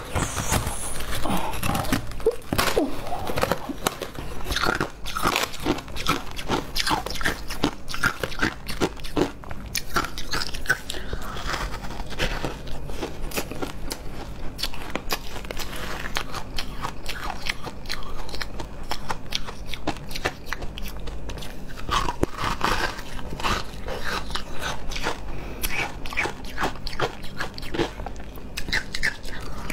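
Hard frozen shaved ice being bitten and chewed, a dense, continuous run of crisp crunches.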